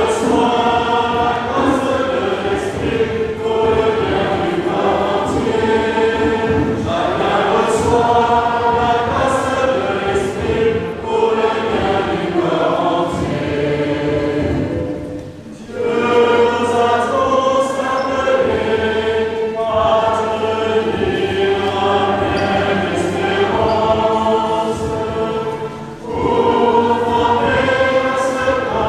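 Choir singing sacred music in long, held phrases, with a short break about halfway through and another near the end.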